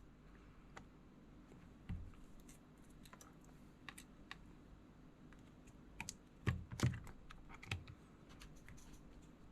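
Faint scattered clicks and taps of small hand-work, with a few louder knocks about two seconds in and again around six to eight seconds in.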